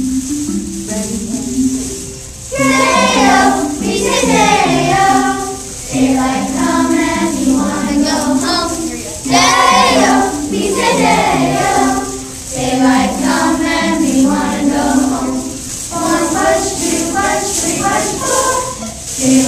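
A group of children singing together over music accompaniment. The voices come in about two and a half seconds in.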